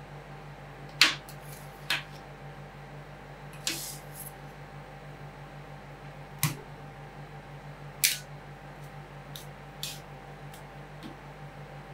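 Metal spatulas tapping and scraping on the steel cold plate of a rolled ice cream pan: about eight sharp, irregular clicks, the loudest about a second in, over a steady low hum.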